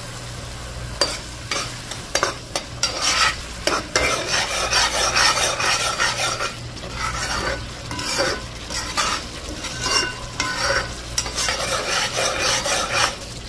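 A long metal spoon stirs and scrapes thick curry sauce in a large pot while the sauce sizzles. Irregular stirring strokes start about a second in and keep going over a steady low hum.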